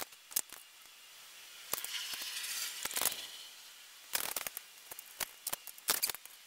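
Light clicks, taps and rustles of hands working on a bicycle's crank while a clipless pedal is greased and threaded on, in scattered bunches with short pauses between.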